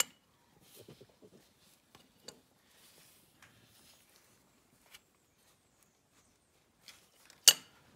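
Sparse light metallic clicks and scrapes of an adjustable wrench being fitted and worked on a bolt on the tractor's rear housing. There is one sharp, loud clank about seven and a half seconds in.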